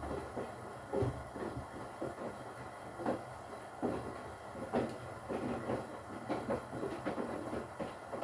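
Front-loading washing machine mid-wash: wet laundry tumbling and sloshing in the turning drum, with soft irregular thumps over a steady low motor hum.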